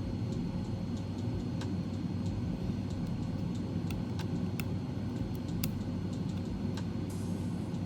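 Steady low background rumble with scattered small, sharp clicks of tools and small parts being handled inside an opened MacBook.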